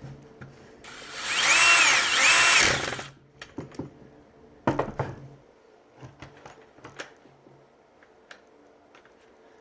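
Electric motor of a handheld power tool run in two quick trigger pulls, its whine rising and falling each time. A sharp knock follows about five seconds in, then light clicks and handling of parts.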